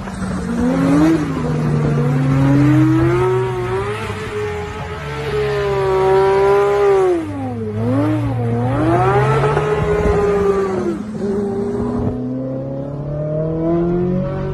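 Porsche 911's flat-six engine revving hard, its note climbing and falling with throttle and gear changes, dipping twice about halfway through and then climbing again.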